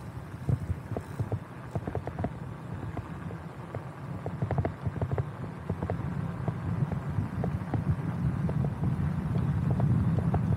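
A vehicle on the move: a low, steady engine drone with many irregular knocks and clicks, growing louder.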